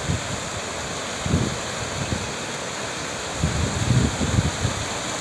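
Brown floodwater rushing in a fast torrent over mud and debris, a steady noise of water. Gusts of wind rumble on the microphone about a second in and again near the end.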